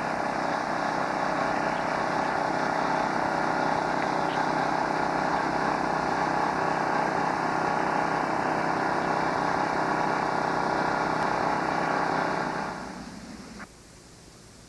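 Small gasoline engines of the trash pumps and suction dredges running steadily, fading out near the end.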